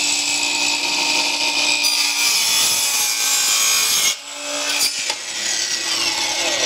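Cordless Craftsman sliding compound miter saw running at full speed with a steady whine, its blade cutting a 45-degree miter through wooden baseboard trim. About four seconds in the sound drops out briefly, and after that the whine falls in pitch as the blade winds down.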